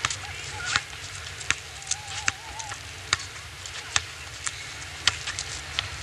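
Basketball bouncing on an asphalt court: a series of sharp knocks, roughly one every half to three-quarters of a second, over a low steady rumble.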